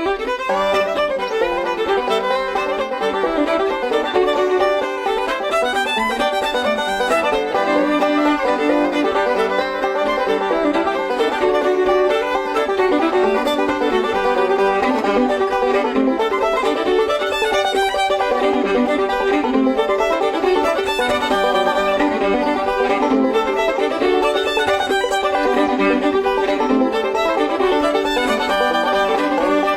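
Background music: an upbeat instrumental with fiddle over a plucked-string accompaniment in a bluegrass-like style.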